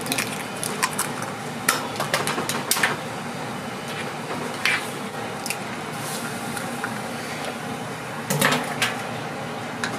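A metal spoon clinking and scraping against a black earthenware pot of bubbling stew on a gas range: a series of sharp clinks, several in the first three seconds and a cluster near the end, over a steady kitchen hiss.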